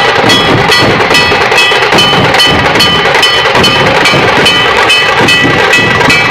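Dhol tasha ensemble playing loudly: tasha drums rolling in a rapid 'kirrrr' over dhols beating a steady rhythm of about two and a half strokes a second.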